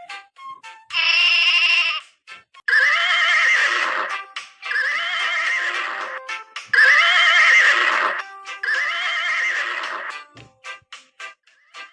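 Horse whinnying, about four long quavering whinnies one after another, over background music with short clicks between the calls.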